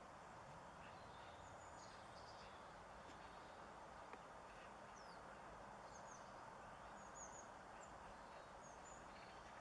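Faint wild birdsong and calls: short high chirps scattered throughout, over a steady background hiss of outdoor ambience.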